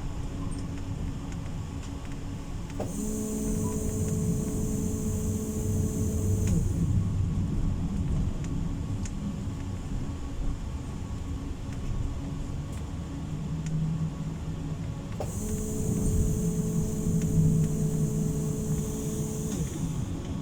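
Running noise inside a PESA low-floor tram: a steady rumble, with a steady whine and a high hiss that switch on twice, for about four seconds a few seconds in and again for about five seconds past the middle.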